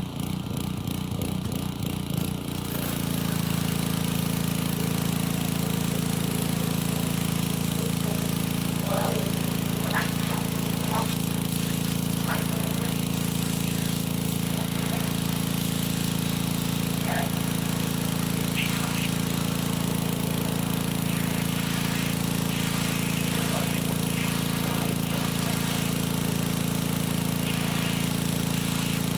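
Pressure washer's small engine running, uneven for the first couple of seconds just after starting, then settling into a loud, steady drone about three seconds in.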